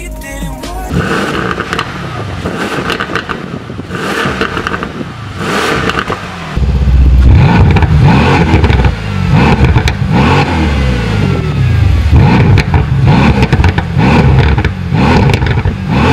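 Mercedes-AMG C63 S twin-turbo 4.0-litre V8 being revved repeatedly at a standstill through its exhaust. It gets much louder and deeper about six and a half seconds in, then keeps blipping roughly once a second.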